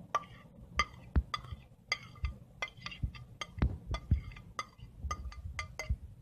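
Metal spoon scraping and tapping against a plate: an irregular run of sharp clinks, each with a short ring.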